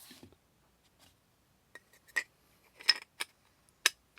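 Pistol parts and grip panels handled on a bench: a short rustle, then five sharp clicks and taps of small hard parts knocking together over about two seconds.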